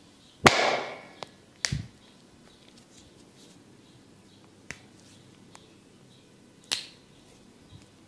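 Percussive massage strikes: a loud, sharp smack about half a second in, then a couple of lighter knocks, a few faint taps, and another sharp smack near the end.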